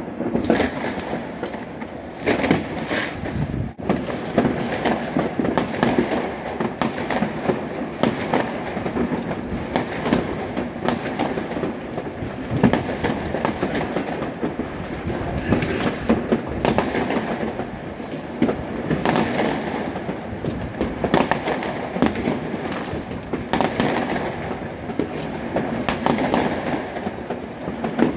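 Many fireworks and firecrackers going off across a city at once: a continuous barrage of bangs, pops and crackling.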